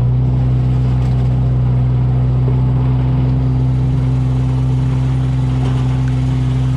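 Small boat's outboard motor running at a steady speed, a constant low drone that holds one pitch throughout.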